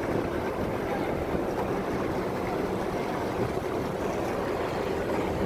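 Steady low rushing noise with a faint hum underneath: wind over the microphone on a cruise ship's open top deck, together with the ship's machinery.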